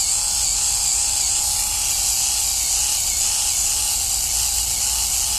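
Philips electric epilator running steadily, its motor-driven tweezer discs plucking hair from a forearm as it is drawn over the skin.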